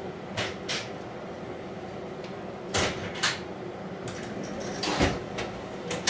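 Diesel railcar engine idling steadily while the train stands at the platform. Several sharp knocks and clatters, about a second or two apart, sound over the hum.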